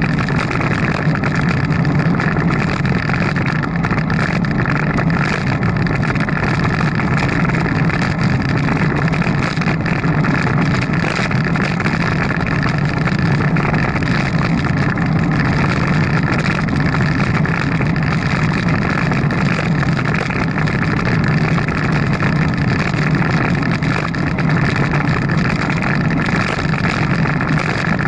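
Steady rumble and rush of a bicycle riding along, with wind on the microphone; it holds an even level with no breaks.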